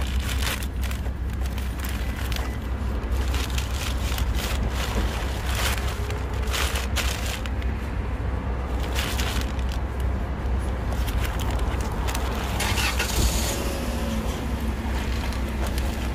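Paper bag and foil wrapper crinkling and rustling in irregular bursts as they are handled and folded, over a steady low background rumble.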